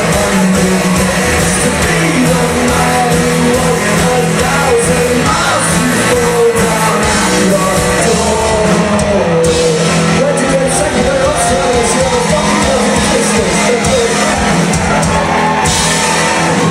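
A rock band playing a song live, loud and steady, with shouted singing over the band.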